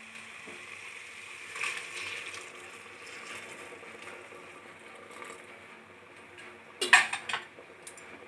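Hot water pouring into a metal pressure-cooker pot of mutton curry masala as a wooden spatula stirs it, followed by a few sharp knocks on the pot near the end.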